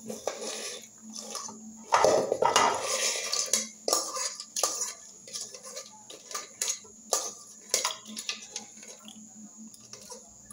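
A metal utensil scraping and clinking against an aluminium cooking pot as food is scooped out onto a glass plate. A louder stretch of scraping comes about two seconds in, followed by scattered clinks.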